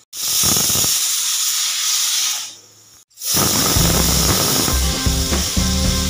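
Pressure cooker on a gas burner hissing steadily as steam escapes from its weight valve. The hiss breaks off for a moment about halfway, then resumes with a music beat underneath.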